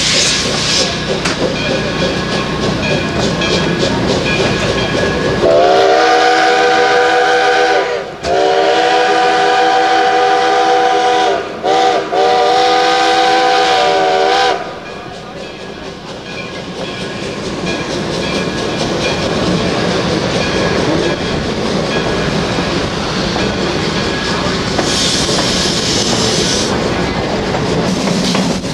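Steam locomotive's several-note whistle blowing the grade-crossing signal, long, long, short, long, over the rumble and clatter of the moving train heard from on board. The whistle starts about five seconds in and stops about halfway. The train then rolls on steadily, with a brief hiss near the end.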